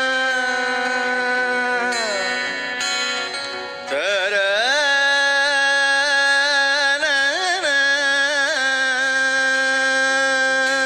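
Male vocalist singing a Tamil devotional song to Shiva without words, holding long notes: one slides down about two seconds in, and after a short dip the voice rises into a new note with wavering ornaments before settling into another long hold.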